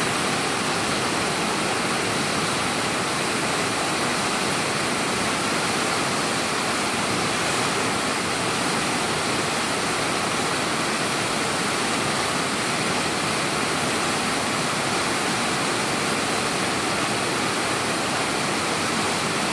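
Fast mountain river rushing over rocks in whitewater rapids: a steady, even rush of water.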